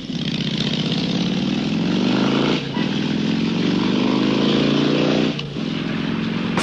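Motorcycle engine accelerating through the gears. The pitch climbs, drops at an upshift about two and a half seconds in, climbs again, and drops at another shift about three seconds later.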